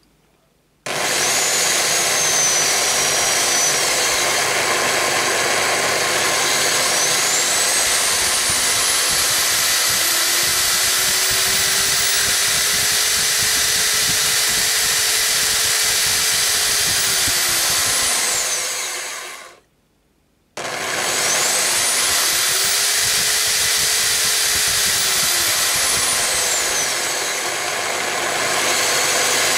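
Corded electric drill, fed through a variable voltage regulator, running with a steady motor whine whose pitch rises as the voltage is turned up and falls as it is turned down. About two-thirds of the way through it stops for a second, then starts again and speeds up and slows once more.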